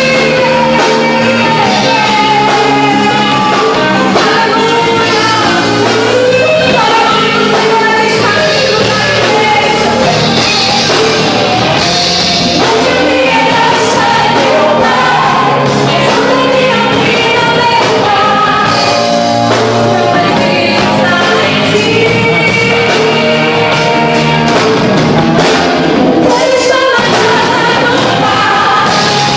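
Christian worship band playing loudly, with a lead vocalist singing over the instruments.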